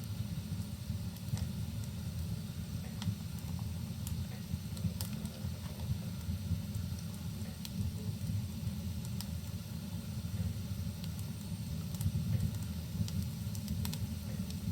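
Wood fire crackling in a fireplace: a steady low rumble with scattered sharp pops, over a faint steady hiss.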